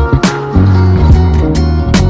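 Background music: a produced track with a steady beat, deep bass and guitar.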